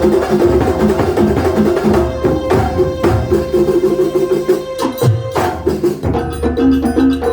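Banyuwangi kuntulan ensemble playing: percussion-led traditional music with drum strokes over fast repeating pitched notes. The rhythmic pattern shifts about five seconds in.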